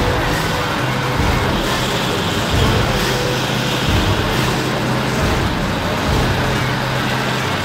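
Steady engine rumble with a low hum that swells and fades unevenly, under a loud, even hiss.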